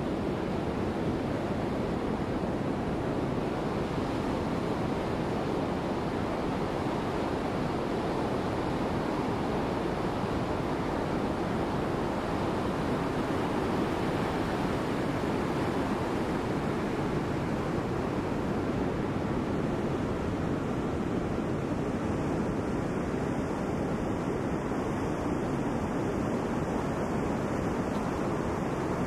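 Heavy storm surf breaking and washing up the beach as a steady, unbroken rush of noise, with wind on the microphone.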